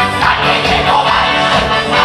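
Loud worship music from a band with guitar, with singing over it.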